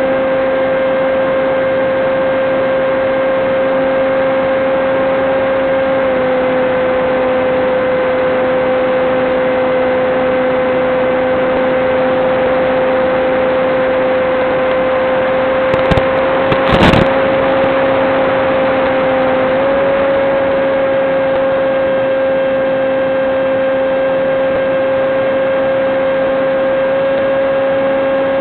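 Steady high whine of the aircraft's electric motor at constant throttle over a hiss, heard through the FPV video link's radio audio. The pitch steps slightly a couple of times, and there is a short crackle of signal breakup about two-thirds of the way through.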